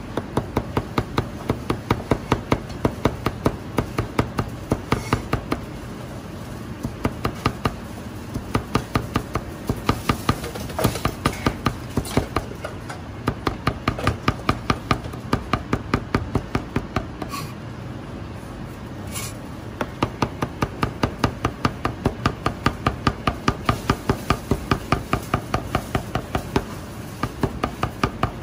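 Chinese cleaver rapidly mincing garlic on a cutting board: quick, even knocks of the blade on the board, in runs of several seconds broken by short pauses.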